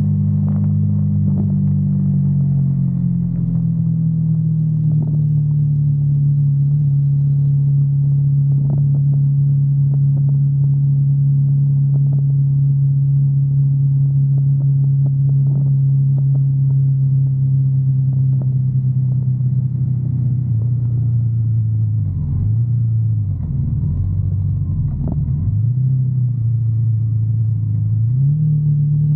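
Sport motorcycle's engine running at a steady cruise, its note easing down slightly a few seconds in. Later it dips twice and wavers for a few seconds as the bike rolls off the throttle, then picks up again shortly before the end.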